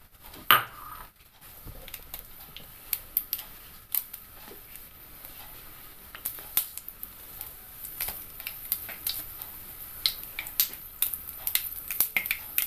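Mustard seeds frying in hot coconut oil in a pan: a faint sizzle with scattered sharp pops and crackles that come thicker toward the end as the seeds start to splutter. One louder click about half a second in.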